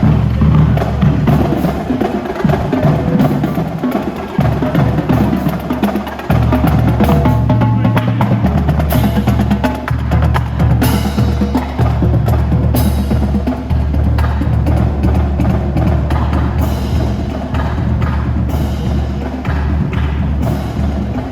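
Marching band percussion drumming: snare and bass drums playing a dense run of strokes. The low drum sound fills out about six seconds in.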